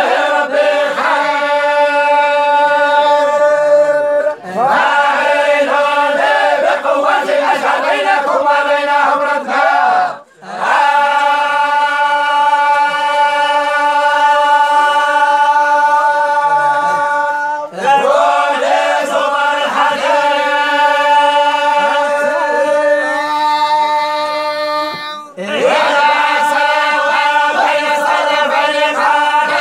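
A group of tolba, men chanting religious recitation together in unison, holding long drawn-out notes in long phrases, with a short break between phrases about every six or seven seconds.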